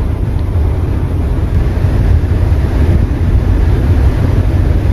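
Steady low rumble on the open deck of a large passenger ship under way: wind on the microphone mixed with the ship's running noise.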